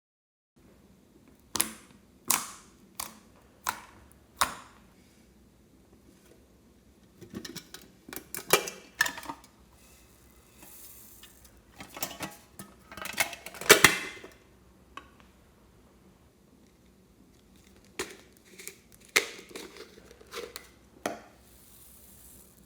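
Slime being played with by hand, giving sharp clicking pops: five evenly spaced clicks at first, then irregular clusters of pops, the loudest about halfway through.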